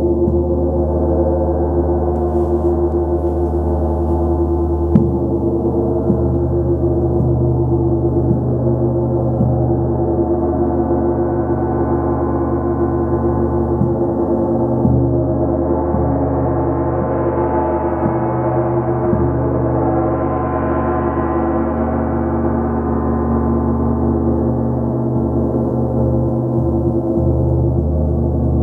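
A 36-inch (90 cm) KI gong played continuously with a soft mallet: a sustained wash of many overlapping ringing tones, with its higher overtones building up and fading back in the second half. A brief click sounds about five seconds in.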